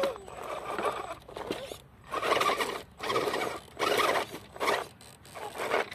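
RC rock crawler's electric motor and geared drivetrain whirring in about six short bursts of throttle as the truck climbs over logs.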